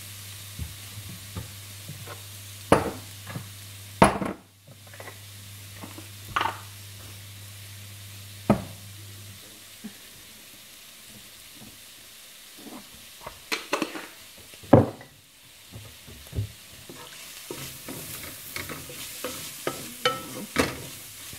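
Shredded cabbage sizzling as it stir-fries in a metal pan, with a wooden spatula scraping and knocking against the pan every second or two, busier near the end.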